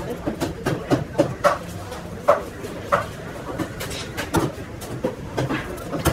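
Large knife cutting a tuna on a wooden chopping block, giving a series of short, sharp knocks at irregular intervals.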